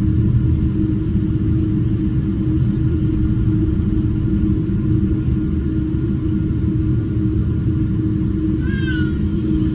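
Steady cabin rumble of a Boeing 777-200ER in flight: engine and airflow noise with a constant hum. Near the end a brief high, gliding voice-like sound.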